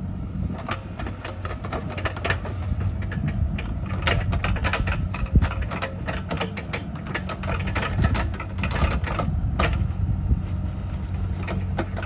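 Bobcat E37 compact excavator's diesel engine running steadily, with frequent clicks and knocks from the machine at work and one sharp knock about five seconds in.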